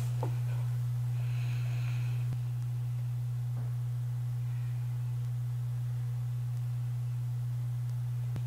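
A steady low hum, with a few faint clicks and a faint brief hiss about two seconds in.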